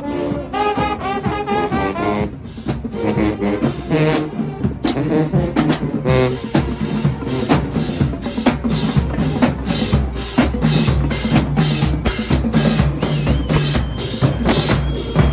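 Marching band playing: brass holds a few notes for about the first two seconds, then the drumline takes over with a steady beat of snare and bass drums.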